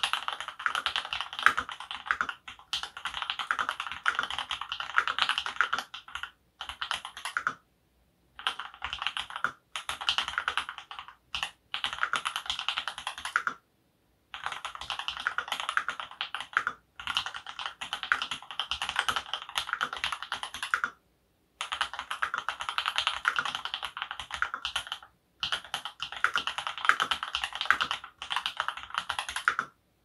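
Typing on a mechanical keyboard with Durock Lavender linear switches, hand-lubed with Krytox 205g0, in an aluminum plate: fast runs of keystrokes in bursts of a few seconds, broken by about ten short pauses.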